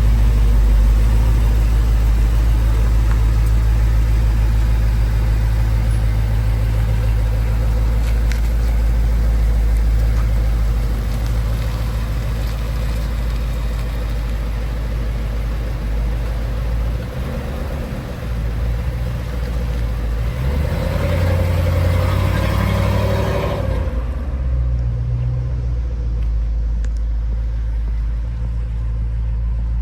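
Truck on the move: steady low engine and road drone, swelling for a few seconds a little past two-thirds through before settling back.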